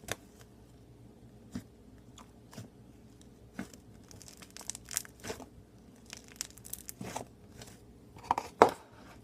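Slime being squeezed and stretched by hand: irregular sticky clicks and crackles, with the loudest pops a little before the end.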